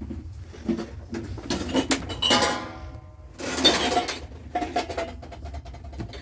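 Household kitchen clatter: pots, dishes and utensils being handled, with repeated short clinks and knocks. Two louder bursts of sound come about two and three and a half seconds in.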